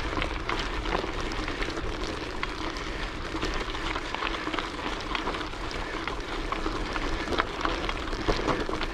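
Bicycle being ridden: a steady rolling noise with many small ticks and rattles.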